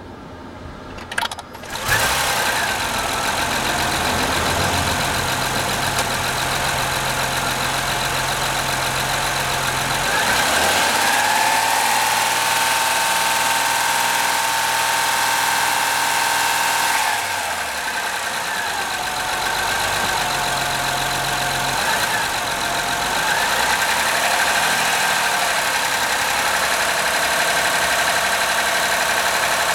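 2005 Honda Accord Hybrid 3.0L V6 engine starting about two seconds in, after a brief click, then running steadily, with its engine note shifting about ten seconds in and again near seventeen seconds. The owner suspects an exhaust leak.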